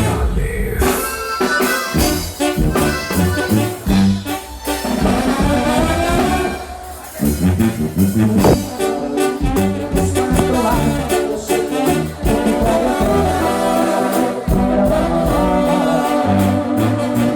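Live Mexican band music: a brass-led instrumental passage over a tuba bass line and a steady beat, with no singing.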